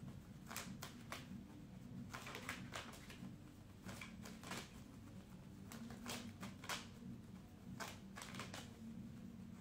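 A tarot deck being shuffled by hand: faint, irregular soft card flicks and clicks.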